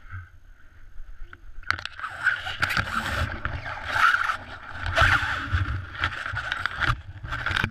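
Tandem paraglider landing on snow: the harness and boots slide and scrape over the snow from about two seconds in, easing off near the end, over a constant rumble of wind on the helmet camera's microphone.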